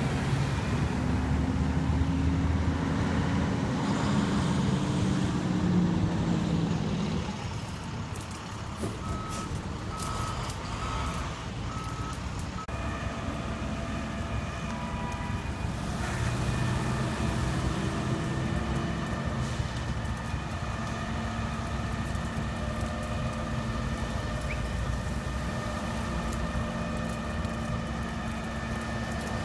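Flatbed tow truck at work: a vehicle accelerating past with a rising engine note for the first seven seconds, then a series of reversing beeps about nine seconds in. From about thirteen seconds on, the tow truck's winch drive whines steadily over its running diesel engine as the pickup is pulled onto the tilted bed.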